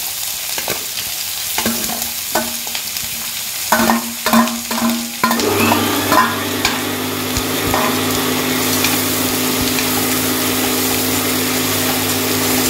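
Sliced onions sizzling in hot oil in a stainless steel kadai, while a slotted steel spoon scrapes and taps them off a steel plate; a run of ringing taps comes about four seconds in. About five and a half seconds in, a steady low hum starts and runs on under the frying.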